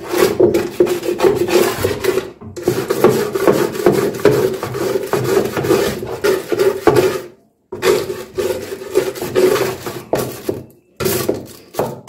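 Hand scrub brush scrubbing the grimy plastic floor of a washing machine's inner drum, under the removed pulsator: fast back-and-forth rubbing strokes, with short pauses about two and a half, seven and a half and eleven seconds in.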